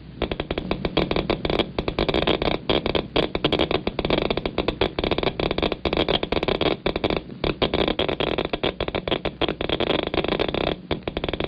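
Radiation counter (Geiger counter) loudspeaker clicking rapidly and irregularly, one click for each pulse from the probe, as beta and gamma radiation from a cobalt-60 source passes straight through a sheet of paper, at about 300 to 400 counts a minute. A steady hiss sits under the clicks.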